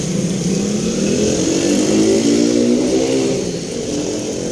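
A motor vehicle's engine speeding up as it passes, its pitch rising from about a second in and easing off again toward the end, over a steady hiss of heavy rain.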